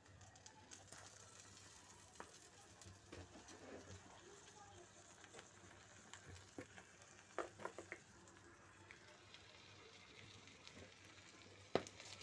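Whole red chilies and garlic cloves sizzling faintly in oil in a pan as a spatula stirs them. The spatula clicks and scrapes against the pan a few times just past the middle, with one sharper knock near the end.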